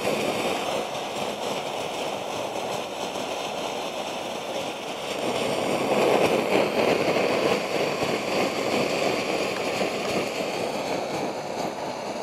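Homemade copper coil jet alcohol stove burning steadily under a pan of water heating toward the boil, a continuous rushing hiss that swells about six seconds in.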